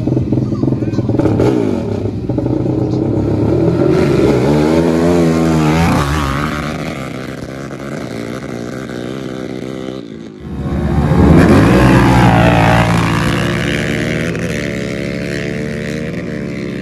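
Sport quad ATV engines revving at the start line, then accelerating hard down a dirt drag strip, their pitch climbing in steps through the gears. After a brief break about ten seconds in, another hard acceleration climbs in pitch and then slowly fades into the distance.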